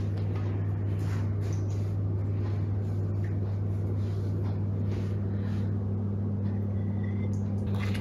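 A steady low hum, with faint soft splashes of thick soup being ladled from a pot into a bowl.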